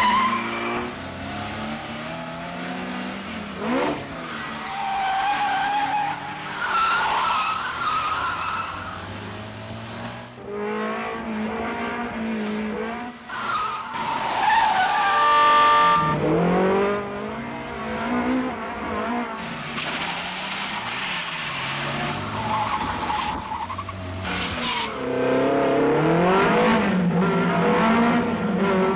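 Car chase soundtrack: car engines revving hard with repeated tyre squeals through fast turns. A steady held tone sounds briefly just past halfway.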